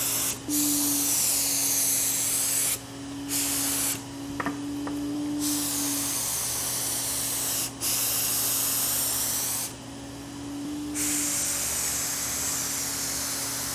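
Gravity-feed HVLP spray gun on a Fuji Q5 turbine spraying lacquer: a loud, airy hiss that stops briefly four or five times between passes as the trigger is released. A steady hum from the running turbine lies underneath.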